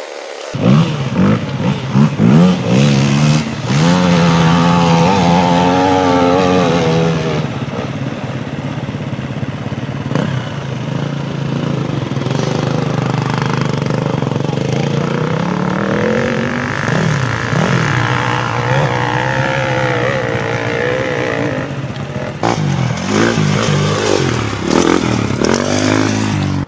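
Several dirt bike engines running and revving, their pitch repeatedly rising and falling as throttles are opened and closed. The loudest revving comes in the first few seconds.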